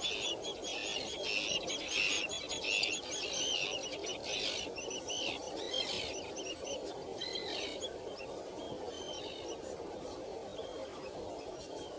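Small birds chirping: many quick, high chirps overlap densely at first and thin out over the second half, over a steady low background noise.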